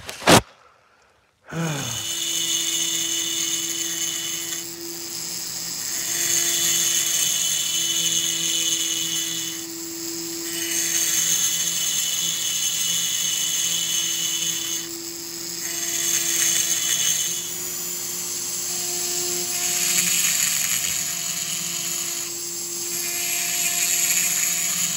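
High-speed rotary grinder with a carbide burr cutting the aluminium transfer ports of a Homelite Super XL-130 chainsaw cylinder during porting. It is a steady high-pitched whine with a cutting hiss that swells and eases every few seconds as the burr is pressed in and lifted, starting about a second and a half in after a brief click.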